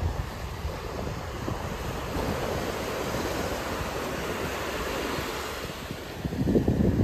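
Small waves breaking and washing up on a sandy beach, with wind rumbling on the microphone. The wind noise grows louder about six seconds in.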